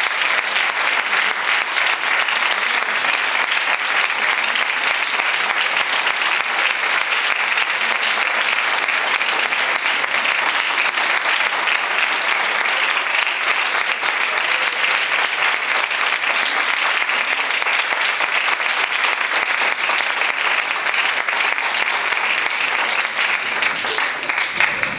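Audience applauding, a steady crackle of many hands clapping that dies away near the end.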